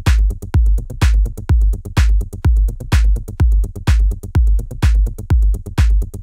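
Techno drum loop playing at 126 BPM: a deep kick drum on every beat, about twice a second, with a bright clap sample on every second beat and short hi-hat ticks between.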